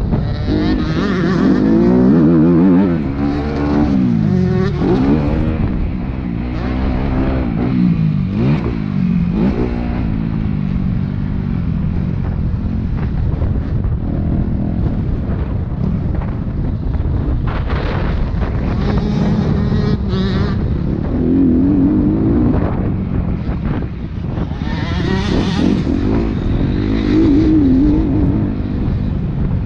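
Motocross bike engine heard from on board, revving up and falling back over and over, its pitch rising and dropping with the throttle and gear changes.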